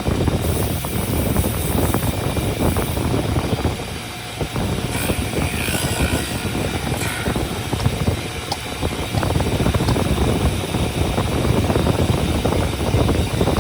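A woodworking power tool running steadily with a dense rumble, dipping briefly about four seconds in.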